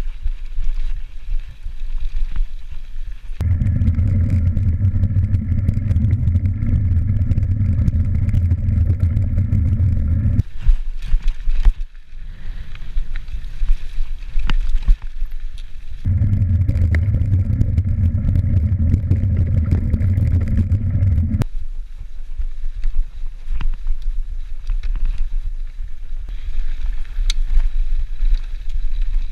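Mountain bike riding fast down a dirt singletrack: rattle, clicks and tyre noise over the trail. A steady buzz sets in about three seconds in and runs for about seven seconds, then comes back for about five seconds from around sixteen seconds.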